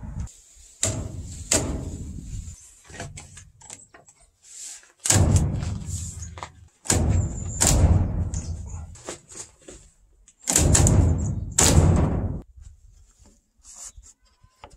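Wooden mallet striking a timber door frame to knock its joints together. Two lighter knocks about a second in, then several heavy thuds in clusters, each followed by a low boom from the frame.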